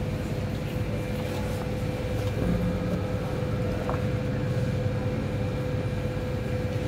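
Supermarket background noise: a steady low rumble under a constant mid-pitched hum, with no speech.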